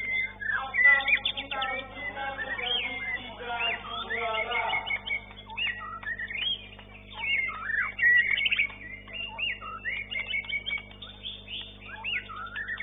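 White-rumped shamas (murai batu) singing: a rapid, unbroken run of varied whistles, rising and falling glides and trills, over a steady low hum.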